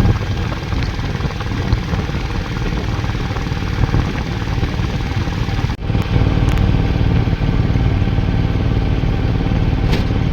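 Metro train running: a steady, loud rumble of wheels and motors, with a very brief break a little over halfway through.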